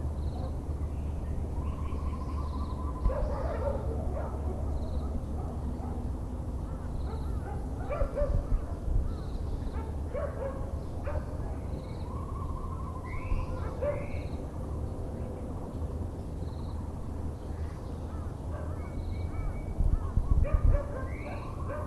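Outdoor chorus of dogs barking on and off and several birds calling, including the Muller's barbet, over a steady low city hum. The loudest calls come about eight seconds in and again near the end.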